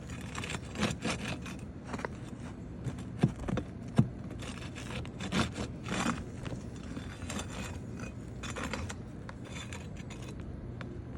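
Hand tools scraping and rubbing against roof shingles as the nails holding a damaged shingle are worked loose. There are two sharp knocks, about three and four seconds in.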